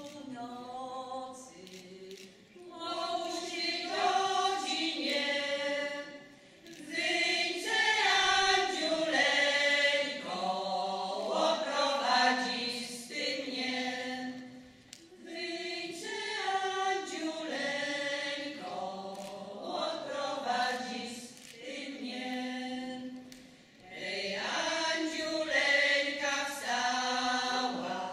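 A women's folk singing group singing a Polish folk song a cappella, in long phrases with short pauses between them.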